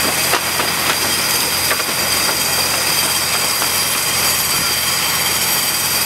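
Diamond core drill boring into a concrete bridge pier: a steady, loud grinding with a constant high-pitched whine, and a few short clicks in the first couple of seconds.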